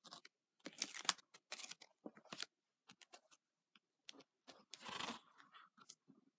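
Hardcover picture book being handled: a quiet series of sharp paper rustles and taps as pages are turned and the book is closed and turned over, with the longest rustle about five seconds in.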